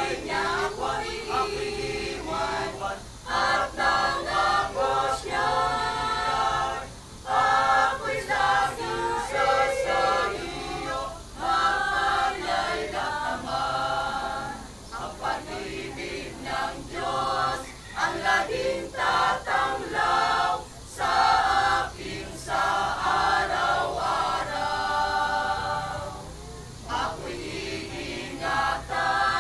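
Mixed choir of men and women singing a Filipino worship song, phrase after phrase with short breaths between.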